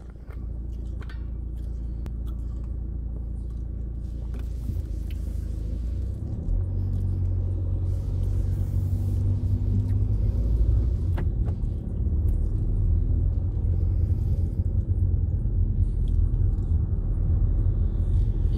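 Road and engine rumble inside the cabin of a moving Renault Samsung SM6, steady and low, growing louder about six seconds in.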